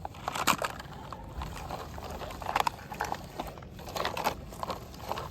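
Irregular light clicks and knocks of a plastic toy truck being handled and moved across a surface.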